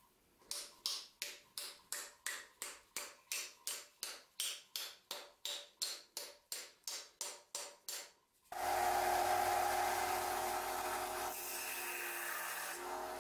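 Even taps, about three a second, driving a glued wooden wedge into the top of a hammer handle. About eight and a half seconds in a band saw starts and runs steadily.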